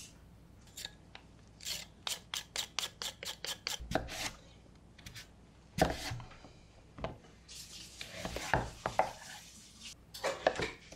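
Chef's knife chopping on a wooden cutting board: a quick run of about five chops a second, then slower single cuts and some rubbing strokes as the blade works through a firm root vegetable.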